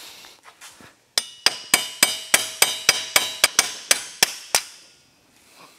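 A hammer striking the handle of locking pliers clamped on a corroded ATV front hub: a quick, even run of about thirteen metal-on-metal taps with a ringing tone, about four a second. The taps start about a second in and stop a little over a second before the end, working loose a part the mechanic calls corroded solid.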